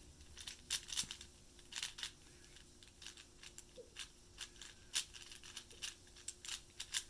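Plastic clicks and scrapes of a 4x4 Rubik's cube's layers being turned by hand, in quick, irregular bursts of turns.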